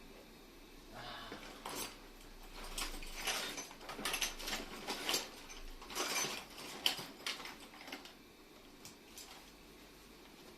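Irregular metallic clicking and scraping of hand tools working on a disassembled air compressor, mostly in the middle stretch.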